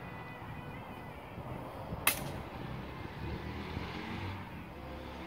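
A single sharp clash of practice sword blades about two seconds in, ringing briefly, over a steady low background rumble.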